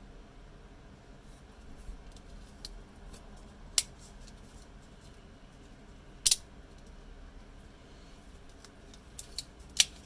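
Sharp metallic snaps and clicks of an old French Ackermann automatic knife's spring and lock as the blade is worked open and shut. There is a loud single snap about four seconds in and another about six seconds in, then three quick clicks near the end.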